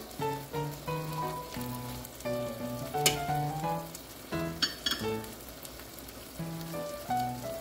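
Chicken and onions sizzling in a skillet while being stirred with wooden chopsticks, with a few sharp clicks of the chopsticks about three and four and a half seconds in. Background music with a melody of short stepped notes plays throughout.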